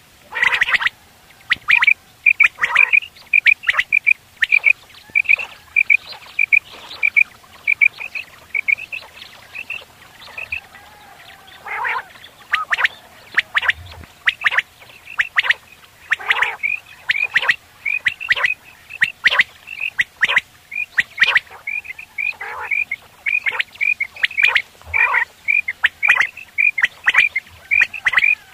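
Caged quails calling: a long run of short, high, repeated notes, about two to three a second, broken by louder, sharper calls.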